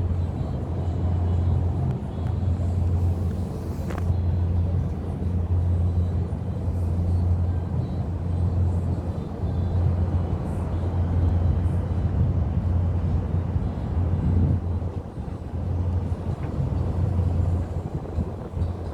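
Steady low engine rumble of a motor vehicle running, with a single faint click about four seconds in.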